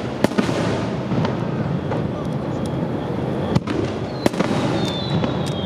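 Fireworks display: several sharp bangs of shells bursting over a steady din of crackling and crowd noise. About four seconds in, a high whistle starts and slowly falls in pitch.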